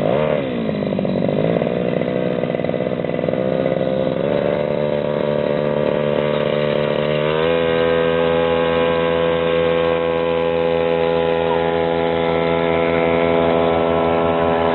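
Small brush-cutter engine, rigged as a canoe drive, running at speed. Its pitch rises and falls over the first couple of seconds as the throttle is worked, then it runs evenly and steps up to a steady higher speed about halfway through.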